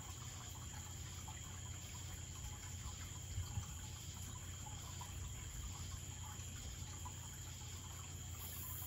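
Aquarium filter running: a faint, steady low hum with light trickling water and scattered small ticks. Two soft knocks come about three and a half seconds in.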